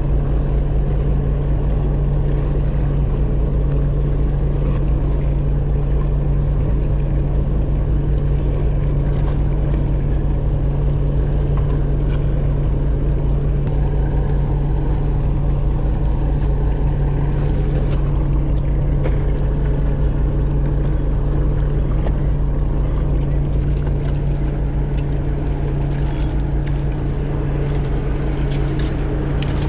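Fishing boat's engine running steadily, a low, even drone that holds at constant speed.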